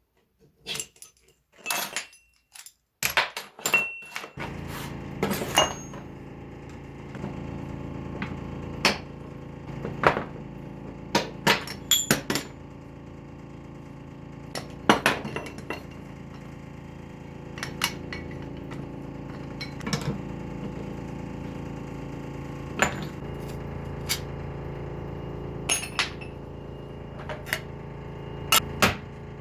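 Metal knocks and clinks of gearbox parts being struck and handled during disassembly, scattered irregularly. From about four seconds in, a steady hum runs underneath.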